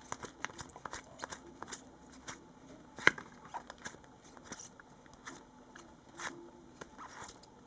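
Panini Adrenalyn XL trading cards being handled and flipped through: a string of light clicks and rustles as the cards are moved, with one sharper snap about three seconds in.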